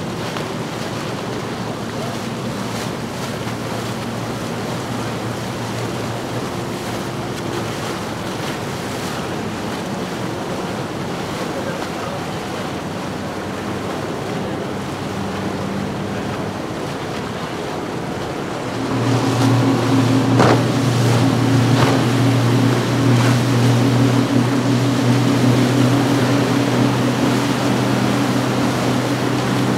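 Outboard motorboats running by, with the wash of their wake and wind on the microphone. About two-thirds of the way through, a louder, steady outboard engine drone comes in as a boat passes close.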